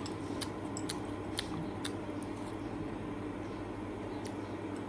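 A few light clicks of a utensil against a small bowl while soup is eaten, most of them in the first two seconds and one more near the end, over a steady background hum.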